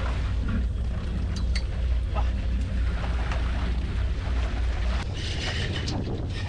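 Wind buffeting the microphone on a boat at sea, a steady low rumble mixed with the wash of water; the rumble eases about five seconds in.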